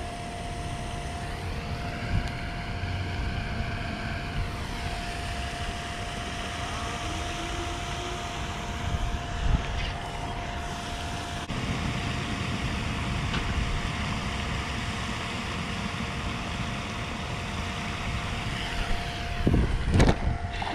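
Wind buffeting the microphone in a steady low rumble, under a faint steady hum. A few sharp knocks near the end.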